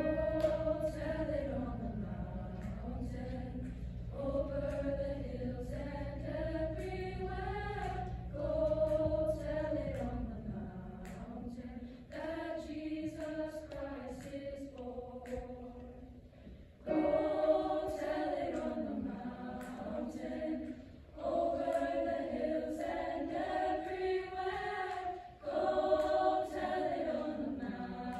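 Mixed high school choir singing in parts, in sustained, slow-moving phrases separated by brief breaks. A low steady tone sounds underneath for roughly the first third.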